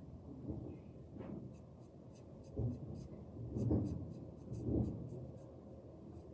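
Sheets of paper rubbing and sliding under hands on a wooden desk, with three louder rubs in the second half and faint light ticks between them.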